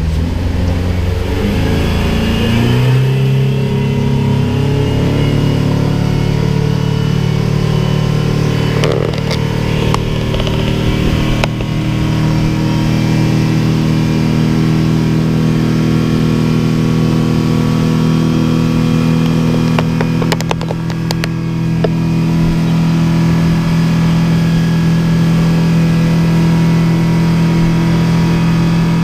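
Speedboat engine picking up speed, its pitch rising over the first few seconds, then running steadily at speed. A few short knocks come partway through.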